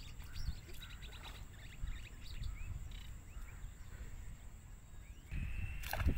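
Small birds chirping and twittering over a low rumble. About five seconds in, the background turns louder, and a sudden sharp sound comes near the end.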